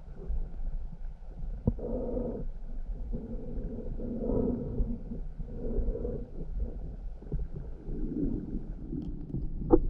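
Muffled underwater rumble of moving water picked up by a camera submerged in a river, swelling every couple of seconds as the diver moves. There is a sharp click under two seconds in and a louder click near the end.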